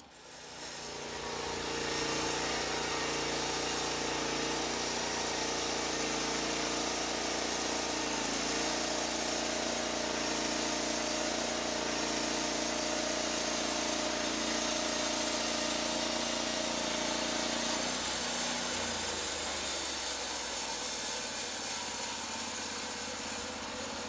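Portable band sawmill cutting through a log: the saw head's engine runs steadily under load with a constant hiss from the band blade in the wood. The sound builds up over the first couple of seconds, and the engine note shifts slightly about eight seconds in and again near eighteen seconds.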